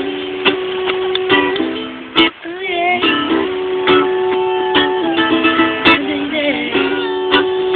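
Acoustic string instruments playing an instrumental break, with chords strummed roughly once a second and sustained plucked notes ringing between them.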